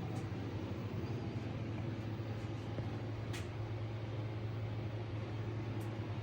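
A steady low mechanical hum over a constant noise, with a short hiss about three and a half seconds in.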